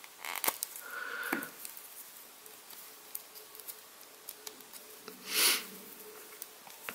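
Fingers handling a small plastic action figure and toy rifle: faint clicks and rubbing of plastic parts, with a brief, louder rush of noise a little past five seconds in.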